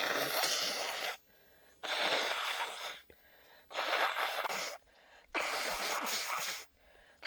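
A person's forceful, hissy breath sounds: four bursts of about a second each with short gaps between, and a fifth starting near the end.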